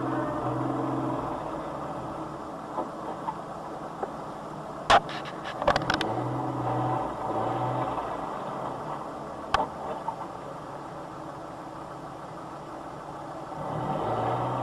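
Motor vehicle engine hum picked up by a dashcam microphone, with a quick cluster of sharp clicks about five seconds in and another single click near ten seconds.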